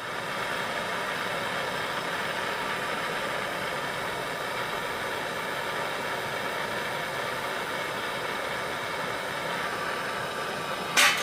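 Handheld gas torch hissing steadily, its flame held against charcoal in a round charcoal stove to light the coals. A brief, sharp, louder noise near the end.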